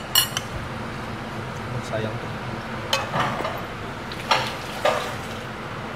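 Kitchen utensils clinking and knocking against pots and dishes: a ringing metal clink at the start, then a few separate sharp knocks in the second half.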